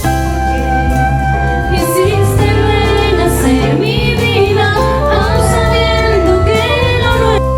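Background pop music with a female voice singing over the instrumental backing; the voice comes in about two seconds in and stops just before the end.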